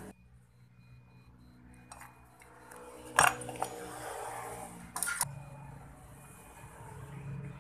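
Metal carburetor parts clinking and knocking as the taken-apart carburetor is handled and picked up. Two sharp clinks stand out, one about three seconds in and one about five seconds in, with a few lighter taps around them.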